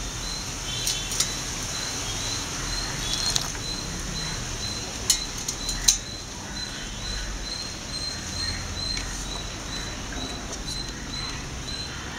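Hand kneading flour and water into dough in a steel bowl, a soft patter and rustle with a few sharp clicks, two of them near the middle. A steady high chirping repeats a few times a second in the background.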